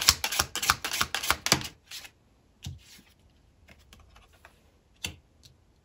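A deck of tarot cards being shuffled by hand: a quick run of light slaps, about six a second, for the first two seconds, then a few scattered taps.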